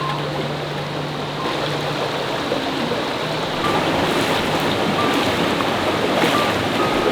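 Waterfall and mountain stream rushing: a steady hiss of falling water that grows slightly louder about halfway through.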